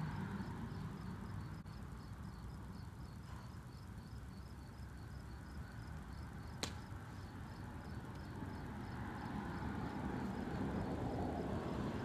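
Faint steady outdoor background noise. About two-thirds of the way through comes one sharp click: the pitched plastic Blitzball striking something after release.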